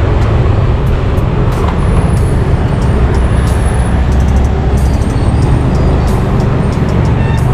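Motorcycle running in city traffic, heard from the rider's seat: a steady low rumble with the sound of road traffic around it.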